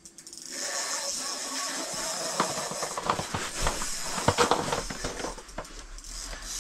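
Fishing reel's drag clicking in uneven bursts as a hooked fish pulls line off against it.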